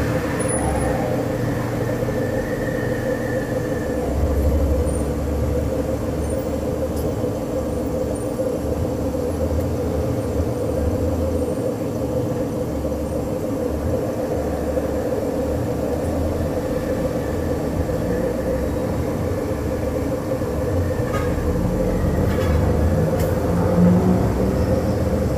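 Samsung front-loading washing machine running on test with a newly fitted control module: a steady motor hum with a low rumble that comes and goes as the drum turns.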